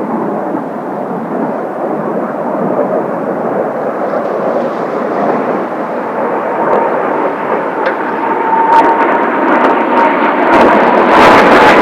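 Kawasaki T-4 jet trainers flying a formation display, a loud rushing jet noise that grows louder, with a steady high turbine whine in the second half. Gusts of wind buffet the microphone in the last few seconds.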